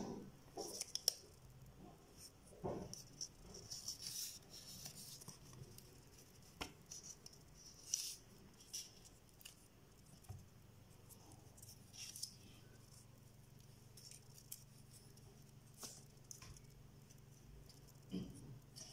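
Paper being folded and creased by hand: faint rustling and crinkling with a few sharper crackles and soft taps.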